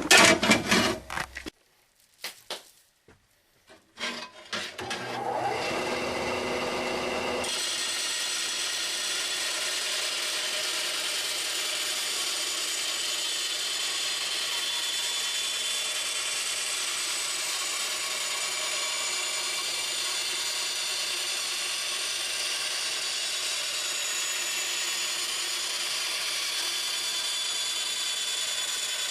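A few loud knocks, then a bandsaw comes up to speed and runs steadily, cutting through a sheet of aluminum.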